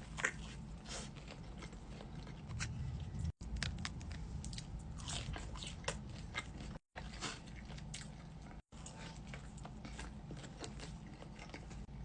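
Close-up mukbang eating: crunchy bites and chewing of fried food from a Dave's Hot Chicken order, irregular crisp crunches throughout. The sound drops out completely three times, briefly each time.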